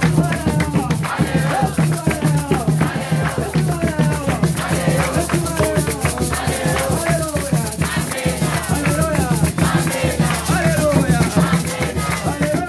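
A gospel choir singing in many voices over a fast, steady shaker rhythm and a low bass line.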